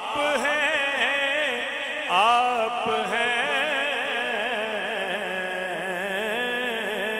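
Male voice singing a naat in long, drawn-out melismatic phrases, the second phrase starting about two seconds in and settling into a long wavering held note.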